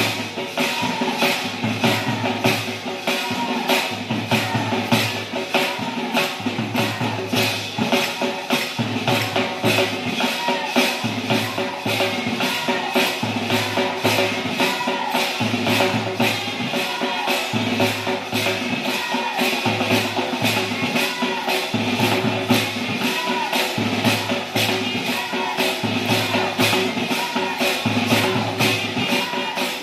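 Kunitha bhajane devotional dance music: a steady quick beat of jingling hand percussion over a pulsing drum, with a melody line that repeats every couple of seconds.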